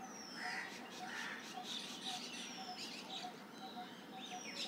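Birds chirping in the background, with a high, falling whistle heard three times and a faint call repeating about twice a second.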